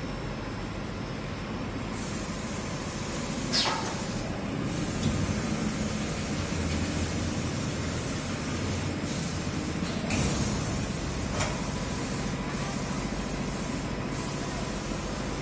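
Industrial mattress quilting machine running: a steady mechanical hum with a hiss over it, and a few short knocks.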